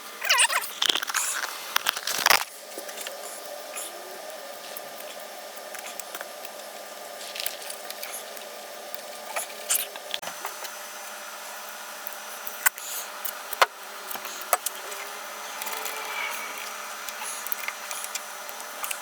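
Adhesive tape pulled off the roll in a few quick ripping tugs in the first couple of seconds. Then quieter handling, with a few scattered clicks and taps.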